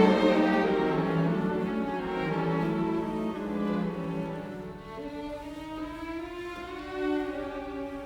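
Background music played on bowed strings, violin and cello, in slow sustained notes.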